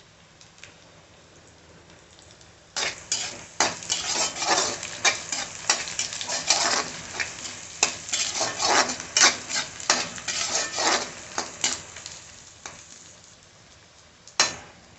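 Metal slotted spatula scraping and clattering against a metal kadhai, stirring onions, peanuts and green chillies frying in oil over a faint sizzle. The stirring starts about three seconds in and runs in quick strokes for around nine seconds, and a single sharp knock comes near the end.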